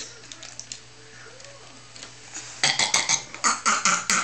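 A toddler making a silly throaty noise: a quick string of short, rasping bursts that starts about two and a half seconds in.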